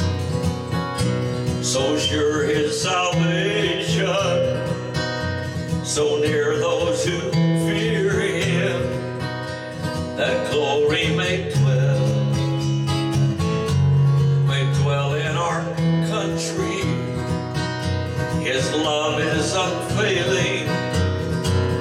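Taylor 324ce acoustic guitar strummed in a steady rhythm, moving through a series of chord changes.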